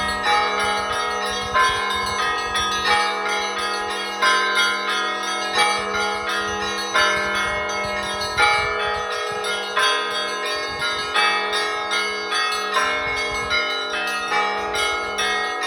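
Church bells ringing: several bells struck in quick, uneven succession, their tones overlapping and ringing on over a steady low tone.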